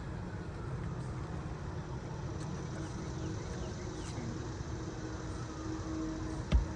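Steady hum of distant road traffic, then two sharp knocks in quick succession near the end.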